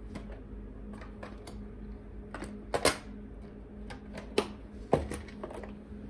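A few sharp clicks and light knocks, the loudest a close pair about three seconds in and two more near the end, over a steady electrical hum.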